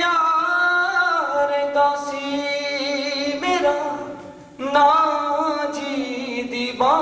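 A man singing unaccompanied into a handheld microphone, holding long notes with slides and wavering ornaments between them. He breaks off briefly about four seconds in, then starts a new phrase.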